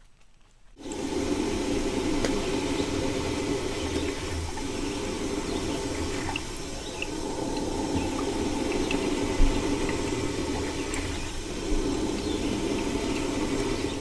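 Coleman camping drip coffee maker brewing on a lit propane camp stove: water in the base heats and gurgles up into the filter basket, with a steady rushing, bubbling sound that starts about a second in.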